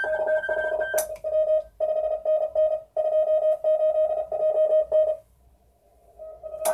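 Morse code (CW) signals received on 40 metres, played through the speaker of a homemade shortwave transceiver: a tone of about 650 Hz keyed in dots and dashes, with a fainter higher-pitched station alongside at first. The keying stops about five seconds in, and a sharp click comes just before it resumes near the end.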